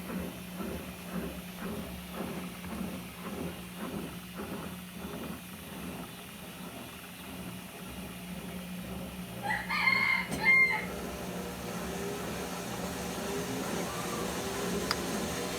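A rooster crows once, about ten seconds in, the loudest sound here. Under it runs the steady hum of an Electrolux LF75 washing machine, with a rhythmic beat about twice a second that dies away by about seven seconds in.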